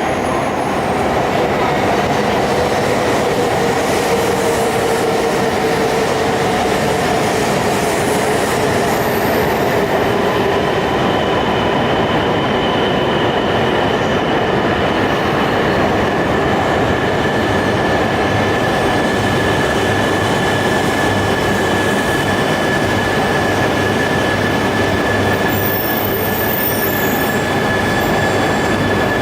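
Shinkansen bullet train running through the station, a loud steady rumble of wheels and running gear. A tone sinks slowly over the first several seconds, and a steady high whine comes in about ten seconds in.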